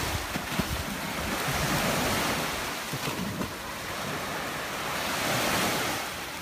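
Small sea waves washing onto the shore, swelling twice, with wind buffeting the microphone.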